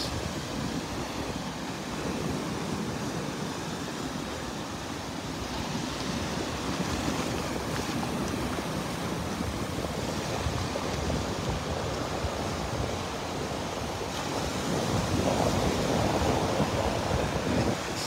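Rough ocean surf breaking and washing up the beach, a continuous rush of waves with wind blowing on the microphone. It swells louder for a couple of seconds near the end as a wave breaks.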